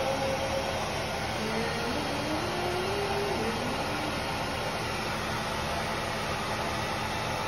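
Handheld hair dryer blowing steadily, with faint wavering tones under the noise.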